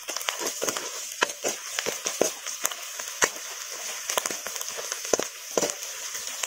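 A metal spatula scraping and clicking irregularly against an iron kadhai, stirring sliced onions frying in hot oil, over a steady sizzle.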